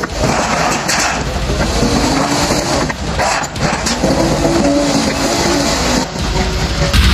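LOVOL backhoe loader's diesel engine running and revving as the machine drives and turns over soft ground, with its pitch rising and falling.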